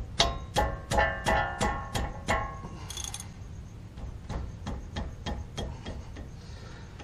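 Socket ratchet clicking as it loosens the 17 mm front brake caliper bracket bolts, about four clicks a second with a metallic ringing in the first couple of seconds, then lighter, slower clicks.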